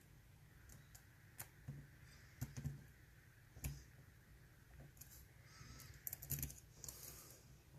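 Faint, scattered clicks of a lock pick working the pins inside a Mul-T-Lock Interactive dimple padlock, with a short spell of scraping and rattling about five to seven seconds in.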